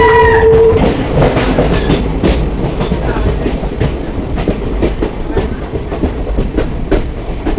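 Wheels of a moving Indian Railways passenger train clattering over rail joints, a dense run of knocks over a steady low rumble. A held tone cuts off within the first second.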